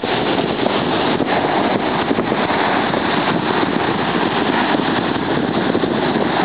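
Sea surf: waves breaking and washing in, a loud, steady rushing noise.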